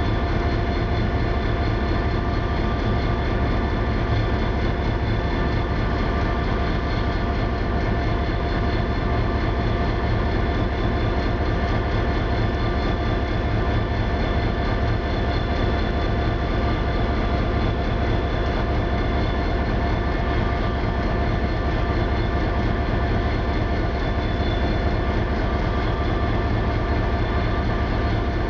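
Diesel engine of a Metra commuter locomotive running steadily while standing, a constant low drone with steady whining tones above it.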